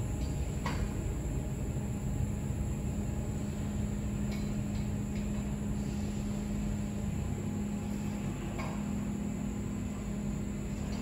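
Six-stage telescopic belt conveyor extending under its drive motor: a steady mechanical hum and rumble, with a few faint clicks.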